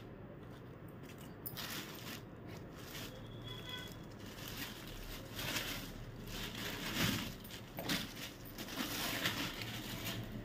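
Cloth rustling in several short swishes as a folded dress-suit piece is lifted, unfolded and spread out by hand.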